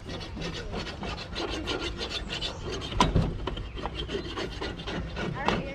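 Portable gas grill's cooking grate being scraped clean of stuck-on residue, a quick run of rasping strokes with one louder knock about three seconds in.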